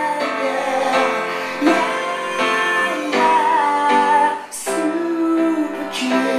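A man singing while playing a grand piano, holding long high notes over the piano chords. The music dips briefly about four and a half seconds in.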